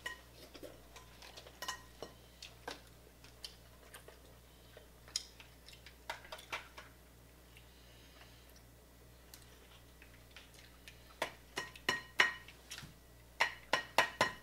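Crab leg shells cracked and snapped apart by hand, a scattering of sharp cracks and clicks that come thickest near the end.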